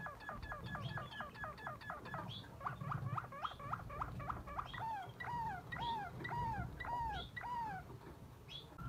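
Canary singing in repeated phrases: a fast run of short falling notes, about seven a second, then, about five seconds in, slower drooping whistled notes, about one and a half a second.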